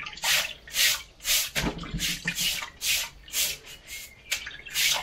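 A small brush scrubbing a wet refractory brick, washing off the dust left by cutting it with an angle grinder: a rapid run of short, hissing scrub strokes, about two a second.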